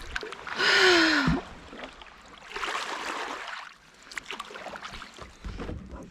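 Kayak paddle strokes in calm sea water: two swishing washes about two seconds apart, with small drips and ticks of water between them. A brief falling tone comes with the first, louder stroke, about a second in.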